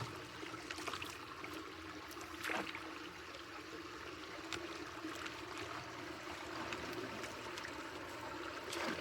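Water trickling and running steadily through a debris-clogged culvert, with scattered sharp ticks over it, the strongest about two and a half seconds in.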